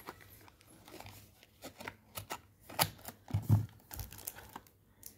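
Cosmetic product boxes and packaging being handled: scattered light clicks and taps, with a little crinkling.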